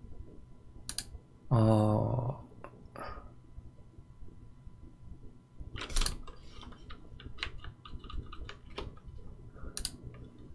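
Scattered computer keyboard and mouse clicks, thickest about six to nine seconds in. A short low hum about one and a half seconds in is the loudest sound.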